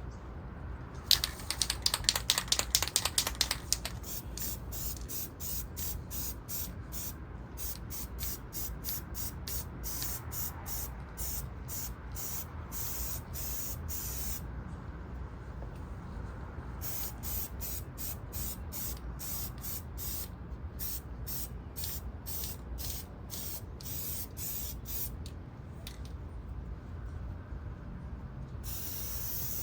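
Aerosol can of copper gasket spray: a loud, rapid rattle for about three seconds near the start, then many short spray bursts in quick succession with a couple of brief pauses. The spray puts a light sealing coat on the engine's oil pan gasket surfaces.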